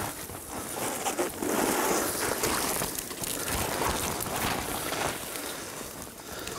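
Footsteps and the rustle of dry brush and grass against clothing and packs as people walk uphill through scrub, an uneven run of crunches and swishes.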